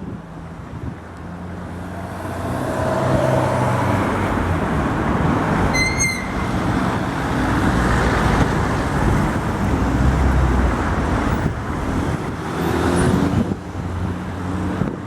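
A tram passing along the street amid traffic. Its rumble and rolling noise build over the first few seconds and stay loud for about ten seconds before easing. A short high-pitched beep sounds about six seconds in.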